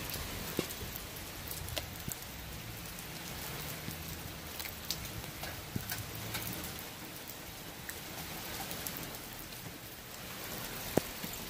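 Steady rain falling on hard ground and kennel surfaces, with a few sharp taps and clicks scattered through.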